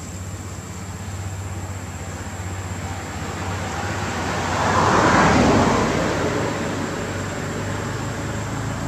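A road vehicle passing: its noise swells to a peak about five seconds in and fades again, over a steady low engine hum.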